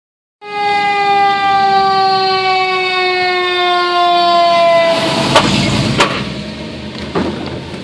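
Fire truck siren sounding close by, loud, starting about half a second in as a held wail that slowly falls in pitch, then cutting off about five seconds in. A few sharp knocks follow.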